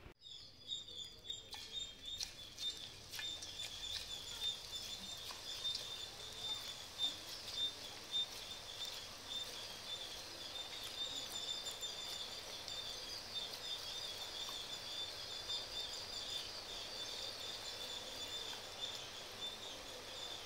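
Hot oil sizzling and crackling steadily in a kadai as murukku dough is pressed into it and deep-fries.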